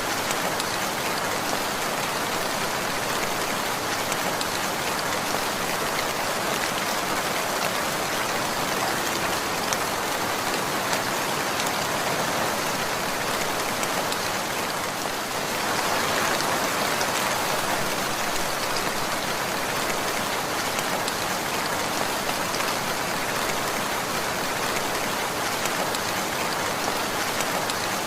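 Steady rainfall pattering on a surface, with a slight swell about halfway through.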